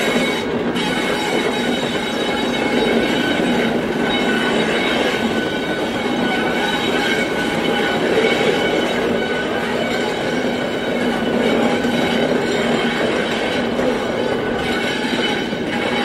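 Class 73 electro-diesel locomotives running slowly past on a curved track, a steady loud mechanical drone with a constant hum throughout.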